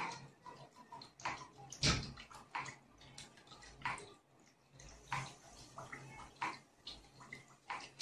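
Water splashing and dripping in a homemade water-pressure fountain model, with irregular light splashes and taps about once or twice a second, the loudest about two seconds in, over a faint low hum.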